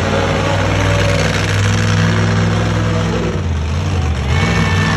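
Monster truck engines running loud and low, the engine note shifting a little in pitch as the trucks move. A brief high steady tone comes in near the end.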